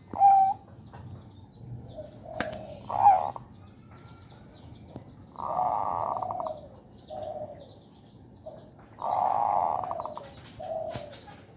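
Male zebra dove making two long harsh, rasping 'ngerot' calls, with a few short coo notes around them and a sharp click about two and a half seconds in. Together with its bekur cooing, this is the call of a male in breeding condition.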